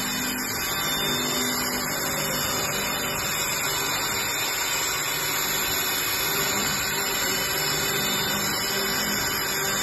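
CNC vertical milling machine's spindle running while an end mill cuts a clear plastic part, a steady machining noise with faint steady hum tones underneath.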